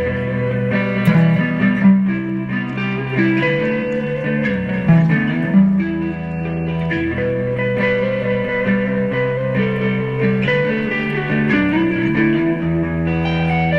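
Background music led by electric guitar over a bass line, with a few sliding notes.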